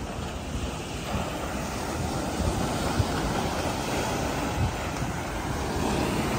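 Small sea waves breaking and washing up on a sandy beach, the surf growing louder about a second in, with wind rumbling and buffeting on the microphone.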